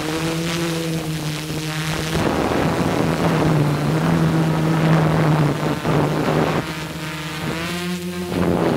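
Multirotor copter's electric motors and propellers humming steadily, the pitch wavering a little as it manoeuvres, with rushing air noise swelling in the middle and again near the end.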